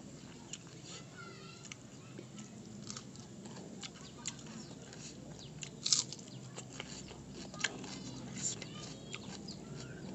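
Eating rice and noodles by hand: chewing and mouth smacks with scattered sharp clicks, the loudest about six seconds in. Birds chirp faintly in the background.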